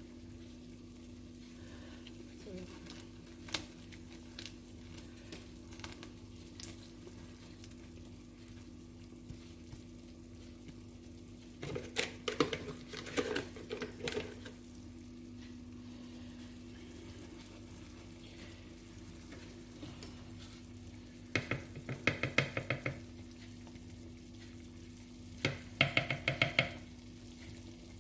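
Spoon stirring a pot of pepper stew, knocking against the pot in three short runs of rapid clinks, about twelve, twenty-two and twenty-six seconds in. Between them come faint sizzling and scattered light clicks over a steady low hum.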